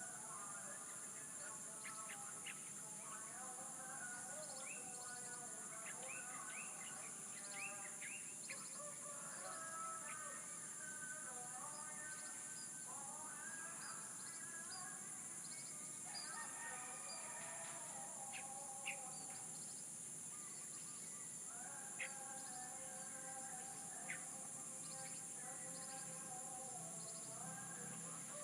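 A chorus of birds chirping and singing in many overlapping short phrases over a steady, high-pitched insect drone.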